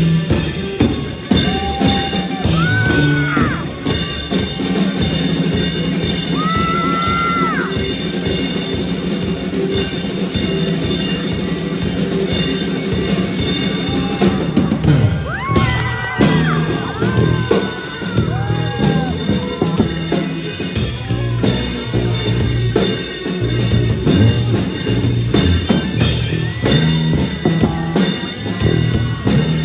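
Live rock band playing an instrumental passage: drum kit and bass under a lead line of bending, sliding notes, most likely electric guitar.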